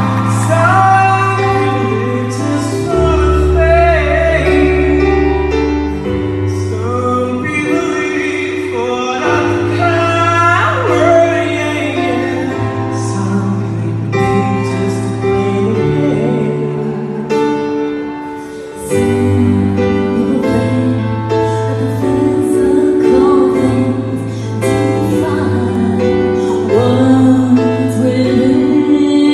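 A slow ballad performed live: a man's singing voice over keyboard and held bass notes. A woman's voice takes over the singing near the end.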